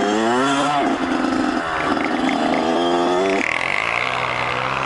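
Kawasaki KX100 two-stroke dirt-bike engine under way, revving hard: its pitch climbs steeply at the start, holds, climbs again about three seconds in, then drops off sharply as the throttle is rolled off.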